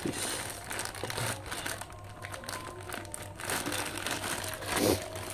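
Black plastic mailer bag crinkling and crumpling as it is squeezed and handled, an irregular run of crackles that swells near the end.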